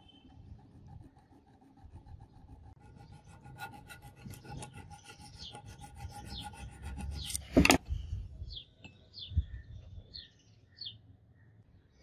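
Small hand file rasping in strokes across steel clamped in a bench vise. A sharp knock about two-thirds of the way through is the loudest sound.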